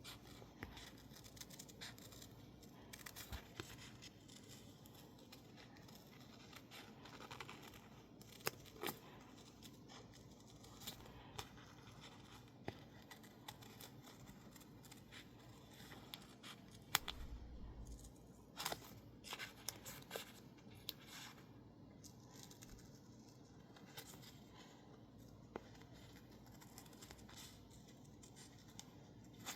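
Scissors cutting stickers out of label paper: faint, irregular snips and paper rustles, with a few sharper clicks of the blades.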